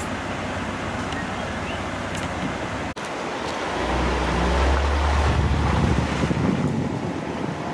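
Steady wind noise on the microphone. About three seconds in it cuts abruptly to a car driving along a road, with wind buffeting and a low rumble that swells for a couple of seconds.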